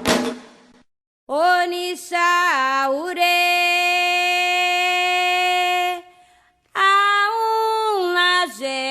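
Drums and group singing of a Candomblé song cut off; after a short pause a single voice sings unaccompanied, sliding between pitches into long held notes, breaks off briefly and sings again.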